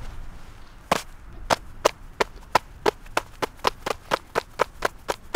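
A quick run of sharp hand slaps, starting about a second in and speeding up to about four a second. A man is beating his hands against his body and clothing to warm fingers gone numb with cold.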